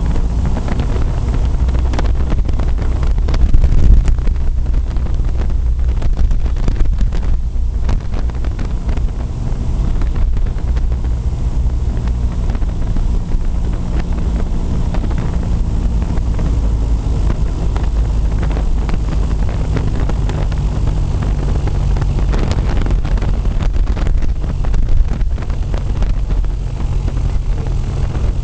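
Aviat Husky A-1C's piston engine and propeller droning steadily in the cockpit on final approach to landing, with wind buffeting the microphone. The engine note shifts slightly in pitch partway through, and there is a brief louder gust about four seconds in.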